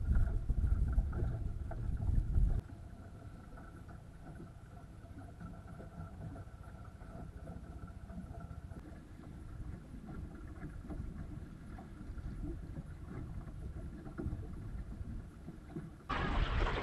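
Wanderer sailing dinghy under way: wind buffeting the microphone and water running along the hull. The wind rumble is loud for the first two seconds or so, then quieter and steady. Near the end it jumps suddenly to a louder hiss of wind and waves.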